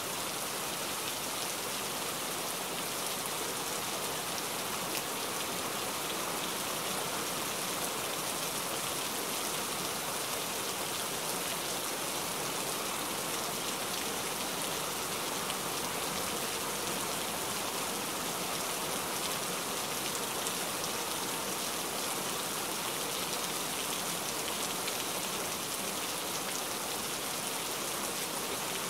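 Heavy rain falling steadily: a dense, even hiss of drops that holds at the same level throughout.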